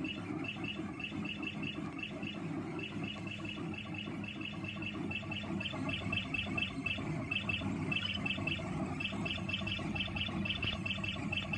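Stepper motors of a homemade MPCNC machine stepping in rapid short moves as it writes small lettering with a pen, the Z axis lifting and lowering the pen between strokes. It makes quick clusters of short, high chirps, several a second, over a steady low hum.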